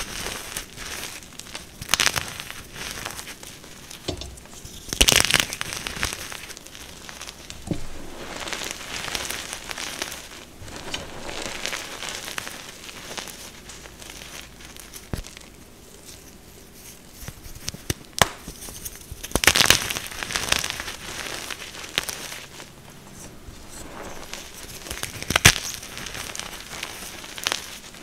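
Fresh BSN gym chalk blocks, coated in pigment powder, being crushed: steady crumbling and gritty crunching, broken by a handful of sharp, louder crunches as pieces snap.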